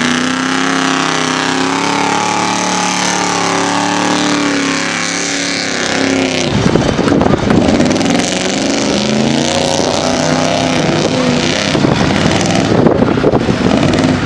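Engine of a 1980s Chevrolet square-body pickup truck revving, its pitch climbing and falling as the truck spins its tyres through a dirt and mud pit. From about six and a half seconds in the sound turns rougher and noisier, and the revving goes on under it.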